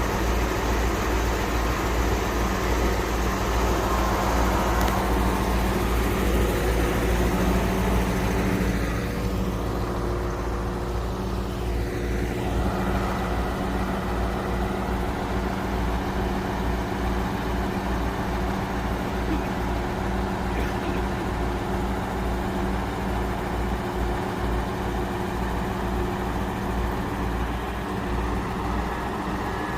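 Crane truck's engine running steadily, with a slight drop in level and a change in its note about nine seconds in.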